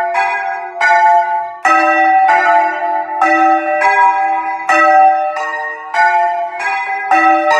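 Several church bells swung by hand on ropes, heard close up in the belfry, striking one after another about once every three-quarters of a second. Each stroke rings on and overlaps the next, and the pitch changes from bell to bell.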